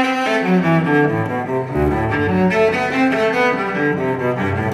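Background music: a melody played in held notes, with a deeper bass part coming in about two seconds in.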